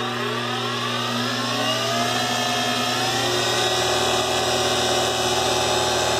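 Sieg X2D mini mill running under power through its belt drive conversion in place of the stock gears. The spindle drive's whine climbs in pitch over the first three seconds, then holds at a steady speed. It is loud, but the speaker calls it much quieter.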